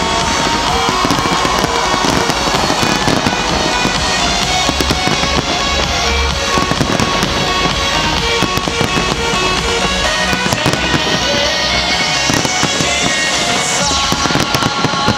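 A dense fireworks barrage: many aerial shells bursting and crackling in quick succession without a break, with music playing underneath.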